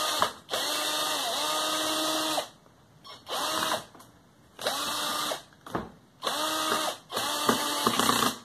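Power drill driving a self-drilling screw into a bamboo slat, the motor whining in about five short runs with pauses between, its pitch sagging briefly as the screw bites.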